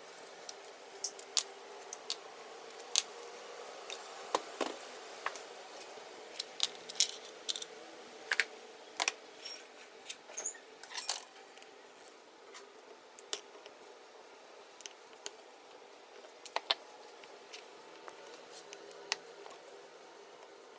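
Small plastic and metal parts of a KWA KRISS Vector gas-blowback airsoft gun handled and set down on a cutting mat: scattered clicks and taps, thickest in the first half and sparser later, over a faint steady hum.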